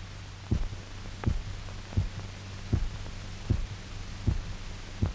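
Heartbeat thumping at a steady, regular rhythm of about 80 beats a minute over a steady low hum: the revived dog's heart keeping a normal rhythm on its own.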